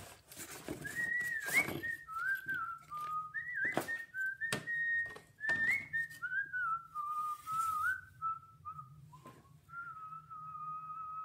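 A person whistling a wandering tune that ends on a long held note. A few sharp knocks and clicks come in the first half as cardboard set pieces are handled.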